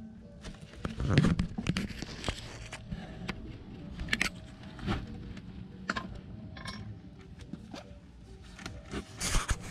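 Rustling and crackling in dry grass and leaves, with many scattered sharp clicks and short tearing sounds, louder about a second in and again near the end: a rabbit moving and foraging in the grass.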